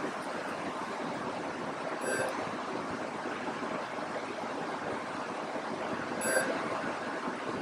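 Steady background hiss with two brief high-pitched blips, one about two seconds in and one about six seconds in.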